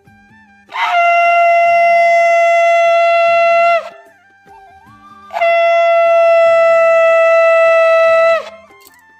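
Conch shell (shankha) blown in two long, steady blasts of about three seconds each, each ending with a short drop in pitch as the breath runs out. This is the conch sounded at the Hindu evening lamp-lighting (sandhya).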